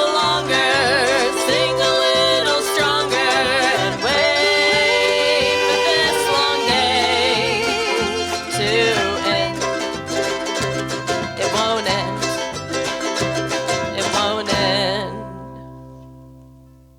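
Live ukulele band playing the instrumental close of a song with a strummed rhythm over a steady bass. The final chord rings out from about 15 seconds in and fades away.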